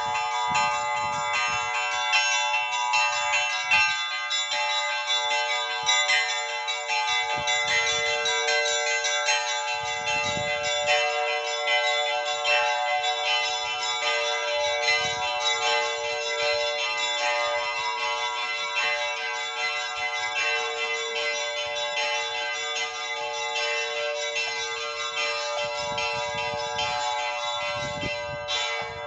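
Orthodox church bells ringing a continuous, rapid peal, many bells sounding together, fading out near the end.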